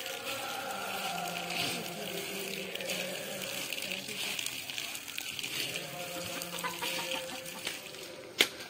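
Water from a standpipe pouring into a tub of grain while a hand stirs and squelches the wet mass, a steady splashing hiss. A single sharp knock sounds near the end.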